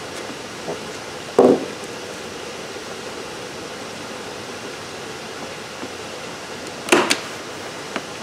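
Handheld framer's point driver firing points into the inside wall of a wooden frame to hold the artwork and backing in place. A sharp snap comes about a second and a half in, then two more in quick succession near the seven-second mark, with a few light knocks from handling.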